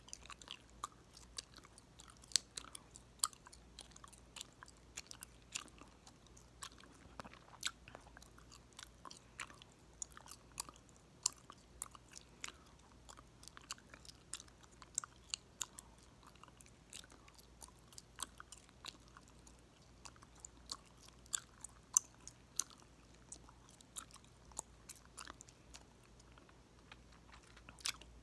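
Gum being chewed close to the microphone, with frequent sharp, irregular pops and snaps of the gum, several a second.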